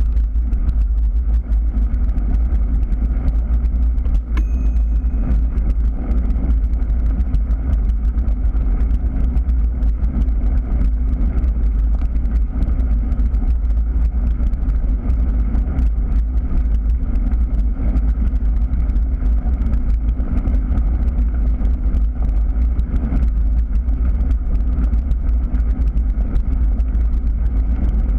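Steady, loud rumble of wind and tyre noise on a bicycle-mounted action camera rolling along a gravel path, with the fine crackle of gravel under the tyres. A brief high ring sounds once, about four seconds in.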